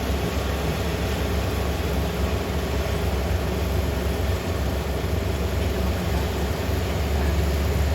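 Kubota rice combine harvester running steadily at work in the field: a low engine hum with an even rushing noise over it.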